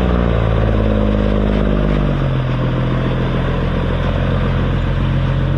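Fire truck's diesel engine running: it holds a raised speed, then drops to a lower steady speed about two seconds in.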